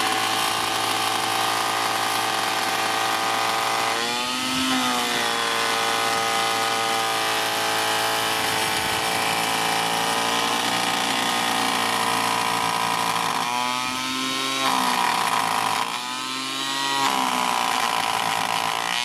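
Parkside PADM 1250 planer-thicknesser running and surface-planing an oak block at a 2 mm cut depth, its motor and cutter head giving a loud, steady whine. The pitch sags briefly as the cut loads the motor about four seconds in and twice more near the end, then recovers.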